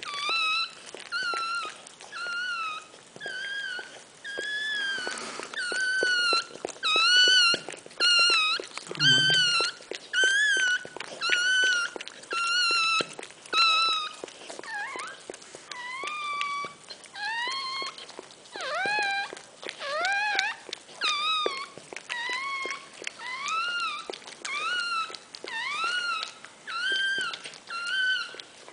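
Newborn Miniature Pinscher puppy crying: a long run of short, high-pitched squeals, more than one a second. In the second half many of the squeals sweep upward in pitch.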